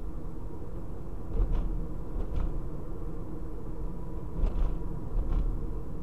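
Car driving, heard from the dashboard inside the cabin: a steady low road and engine rumble, with four short knocks or thumps in two pairs, about a second apart.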